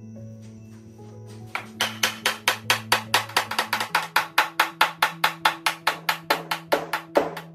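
Soft-faced mallet tapping the end of a tapered sliding dovetail board, driving it along its slot in a wooden tabletop. It strikes in a fast, even series of about four or five taps a second, starting about a second and a half in, over steady background music.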